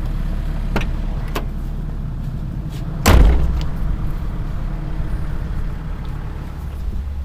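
Kobelco SK210 excavator's diesel engine running with a steady low rumble. Two sharp clicks come about a second in, and a loud thump about three seconds in.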